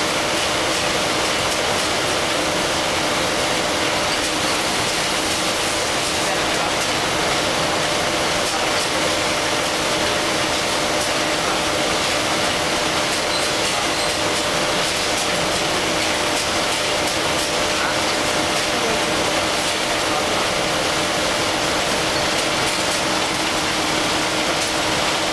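Facial tissue production line machinery running: a steady, loud mechanical noise with a constant hum and faint scattered clicking from the conveyors and folding equipment.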